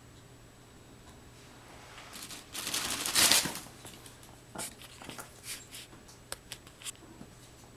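African grey parrot making a strange noise: a loud, rough hiss or rustle about two and a half seconds in, lasting about a second, followed by a scatter of sharp clicks.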